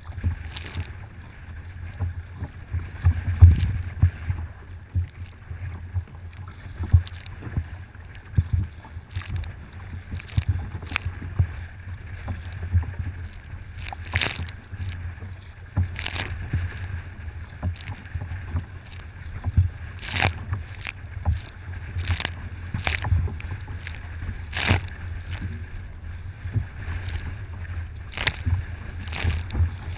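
Choppy waves slapping against the kayak's bow and spray hitting the camera in irregular sharp splashes, several every few seconds, over a steady low rumble of wind on the microphone.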